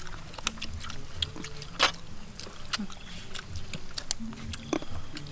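People chewing and biting small green fruits picked off the stem: a run of sharp crunchy clicks and mouth sounds, one louder crunch about two seconds in.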